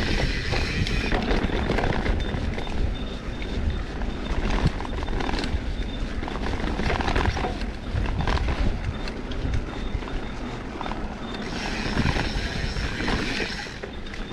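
A vehicle on the move: steady engine and road noise with wind buffeting the microphone.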